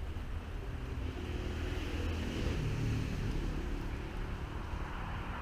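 A passing motor vehicle: a low rumble and rushing noise that swells about two to three seconds in and fades, with wind on the microphone.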